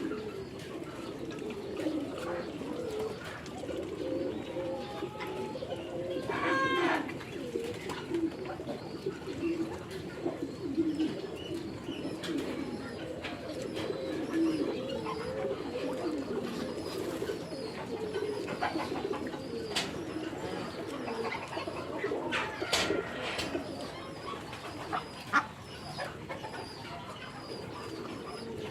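A flock of birds calling continuously in low, wavering murmurs, with a few brief higher-pitched calls standing out now and then.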